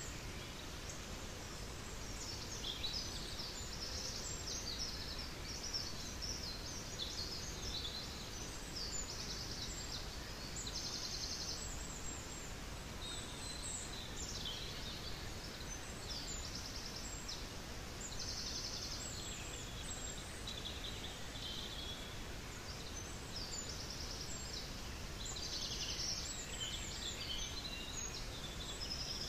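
Small birds chirping and singing, with several short rapid trills, over a steady rush of running stream water.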